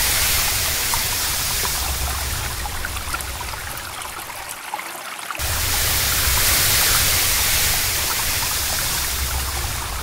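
Fast river water rushing over rocks, a steady full rushing noise. It dips about four and a half seconds in and cuts back in abruptly about a second later.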